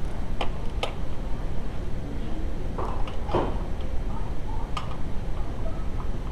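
A few sharp clicks and a short rattle about three seconds in, from tools and parts being handled during repair work, over a steady low rumble.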